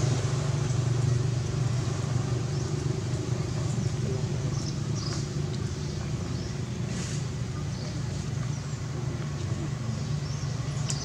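Steady low engine hum, like a motor vehicle running nearby, with a few faint short high-pitched ticks over it.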